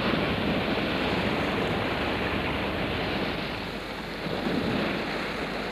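Sea water rushing and splashing against a bundled reed boat hull under way: a steady wash of surf that swells briefly about four and a half seconds in.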